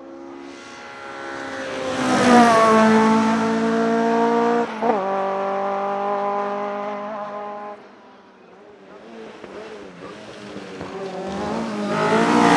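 Hillclimb race car at full throttle, loud as it passes with its engine note dropping in pitch. It shifts gear about five seconds in and fades away up the hill. Another engine rises again near the end.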